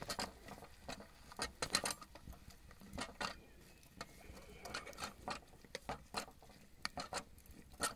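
Irregular crackles, pops and sharp clicks from the goulash cauldron over a wood fire, as crushed garlic goes into the hot pot.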